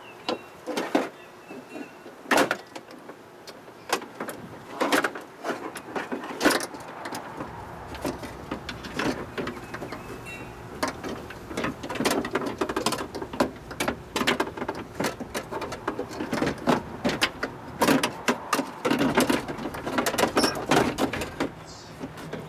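Irregular clicks, clanks and rattles of a power window regulator's metal rails and cable being handled and worked into a car door, some knocks much louder than others.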